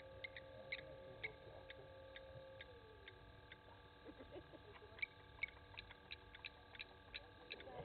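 Faint regular ticking, about two ticks a second, quickening to about four a second from about five seconds in. Under it is a faint steady tone that fades out about a third of the way through.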